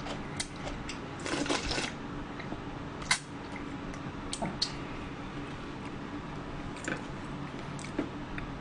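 Drinking cold yeolmu naengmyeon broth straight from a stainless steel bowl: a slurp about a second in, then scattered small clicks and gulps. A light knock near the end as the bowl is set down on the table.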